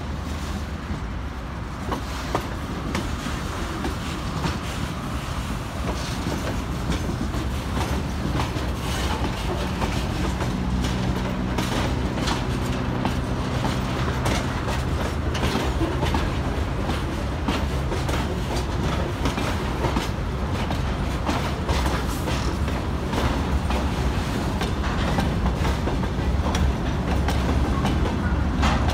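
A freight train's wagons roll past on the rails: a steady rumble with the clickety-clack of wheels over rail joints, growing slightly louder. A low steady hum joins in from about ten to twenty seconds in.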